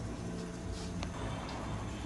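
Ramen vending machine working through its cooking countdown: a steady low mechanical hum with one sharp click about a second in.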